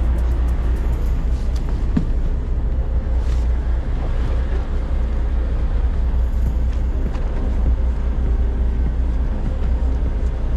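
Steady low rumble of a fishing boat's engine running at a constant pace.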